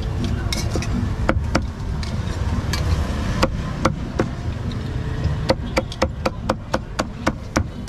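Cleaver chopping on a wooden chopping block: a few single chops, then a quick run of about a dozen chops, four or five a second, near the end.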